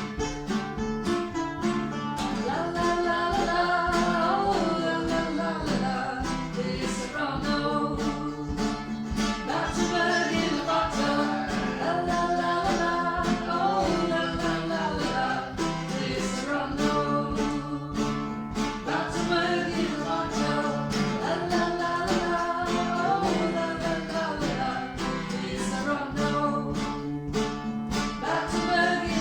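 Acoustic music: strummed guitar and a mandolin playing, with a voice singing the melody.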